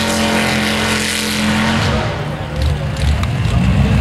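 Mega mud truck's engine running at high revs as it churns through a mud pit, then coming off the throttle about halfway through and dropping to a lower, rougher rumble.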